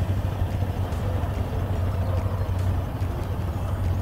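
Motorcycle engine idling steadily with a constant low hum.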